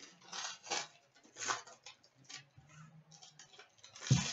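Foil trading-card pack wrapper being torn open and crinkled by hand, a run of short crackles, with a single sharp thump near the end.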